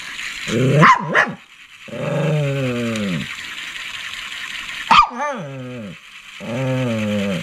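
Shih Tzu giving four drawn-out, whining barks, each sliding down in pitch. The sharpest two start about a second in and about five seconds in.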